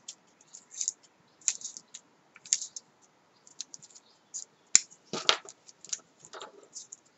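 Masking tape being pulled off its roll and wound around a paper flower's stem: a run of short, dry crackles and clicks, with a louder burst about five seconds in.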